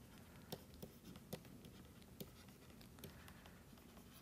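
Faint taps and scratches of a stylus writing on a tablet screen: a few light ticks against near-silent room tone.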